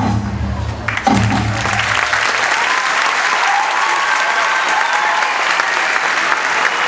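Audience applauding as the dance music with its bass beat stops about two seconds in.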